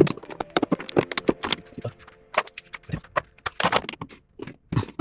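Hand tools clicking and clinking on metal in quick, irregular strokes, while work on a car's clutch master cylinder begins.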